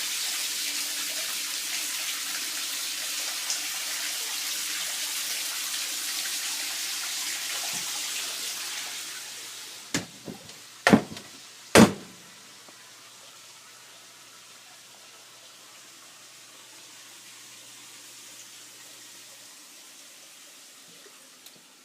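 Steady rush of running water that fades away after about nine seconds. A few sharp knocks follow close together, then only a faint hiss remains.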